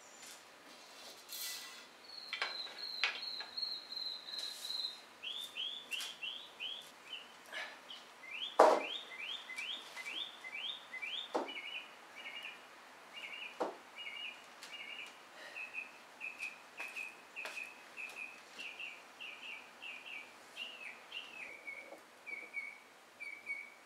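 A songbird singing a long run of repeated whistled notes, a few per second, switching phrase every few seconds. Occasional sharp knocks come from the wooden boards and pipe clamps being handled; the loudest is about nine seconds in.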